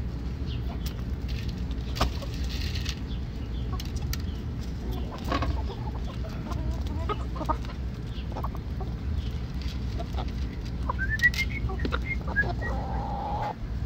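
Young backyard chickens, cockerels and pullets, pecking cracked corn off the ground, with scattered sharp beak taps and low clucking over a steady low rumble. Near the end one bird gives a short run of rising calls, then a held note.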